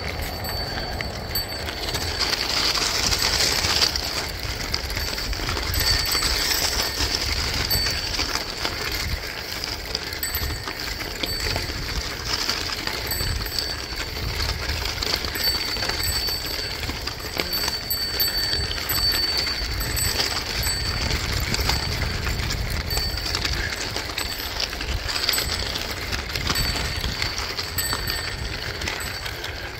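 Bicycle tyres rolling over a loose gravel trail, a continuous crunching hiss with wind rumble on the microphone. A high, steady whine comes and goes throughout.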